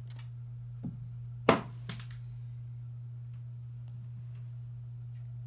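A light knock, then one sharp thump about a second and a half in and a smaller knock just after, over a steady low hum.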